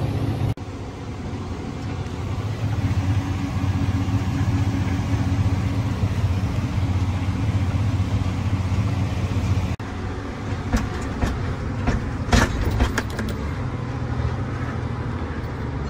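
John Deere tractor engine running steadily under load, heard from inside the cab while it pulls a stalk chopper through standing sorghum, with the sound breaking off briefly twice. A few sharp knocks come about two-thirds of the way in.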